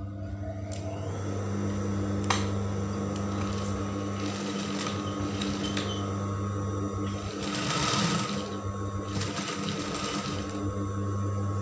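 Table-mounted industrial sewing machine stitching a seam through layered fabric, over a steady motor hum.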